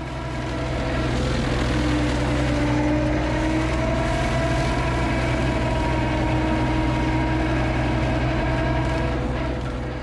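Compact track loader running an Erskine rotary cutter through brush: the loader's engine and the hydraulically driven cutter make a steady drone that wavers a little in pitch. The cutter's OMNI gearbox has been rebuilt with new output bearings and is working well.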